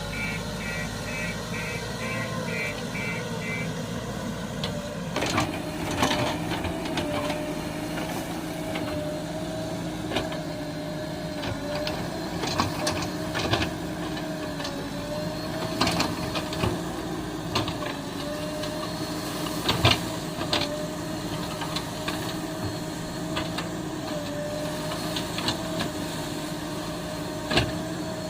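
An engine running steadily with a wavering hum that gets stronger about five seconds in, a quick series of short beeps over the first few seconds, and scattered sharp clanks and knocks.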